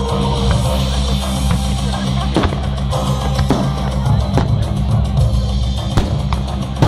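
Loud music with a heavy drum beat playing over loudspeakers during a fireworks display, with several sharp bangs from firework bursts.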